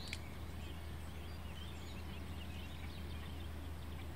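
Birds chirping and twittering in the background, many short calls overlapping, over a steady low hum.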